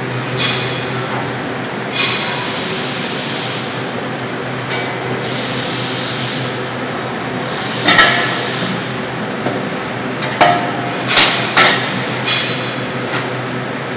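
Trunfo CNC press brake working: a steady machine hum with stretches of hissing and sharp metallic clanks, the loudest about eight seconds in and a quick cluster of them a couple of seconds later.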